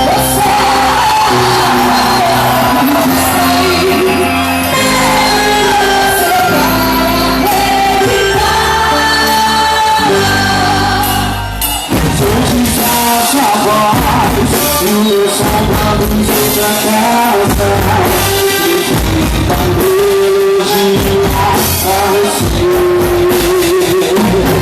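Loud quadrilha junina dance music with singing, with a short break about halfway through before the music picks up again with a sharper beat.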